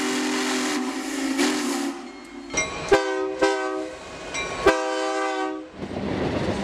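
Steam locomotive whistle sounding a steady chord over a strong rush of steam for about two seconds, then a diesel locomotive air horn giving two short blasts and a longer one, followed by the rumble of a passing train.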